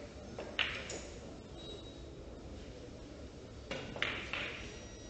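A carom billiards shot: the cue tip strikes the ball with a sharp click about half a second in, then about three seconds later a few sharp clicks in quick succession as the balls collide.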